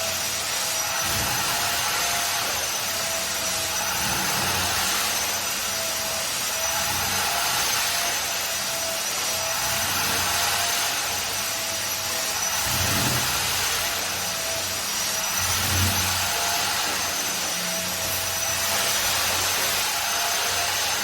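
A carpet-cleaning machine's motor running steadily with a high whine over a constant rush of air, rising and falling a little every few seconds as it works over the carpet.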